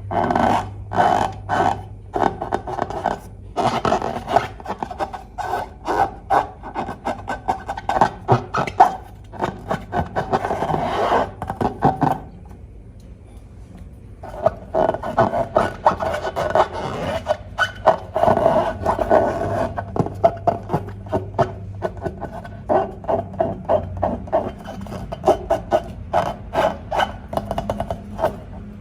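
Slime being squeezed and worked by hand: a dense run of short sticky crackles and squelches, dropping away for a couple of seconds about twelve seconds in, then starting again.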